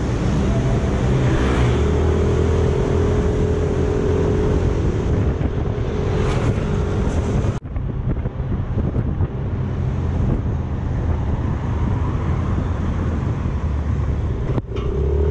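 Yamaha motor scooter running as it is ridden through city traffic, with road noise around it. The sound breaks off sharply twice, about halfway through and near the end.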